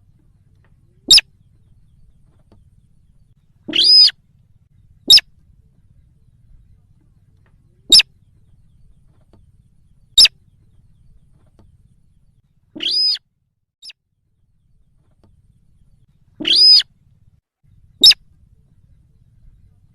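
Sintar bird call played as a hunter's lure recording: short, sharp, high calls repeated every second or three, with three longer, fuller notes among them.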